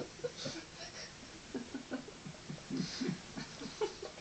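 Soft, breathy giggling and laughter from a young boy and a woman, in short broken bursts quieter than the loud laughter just before.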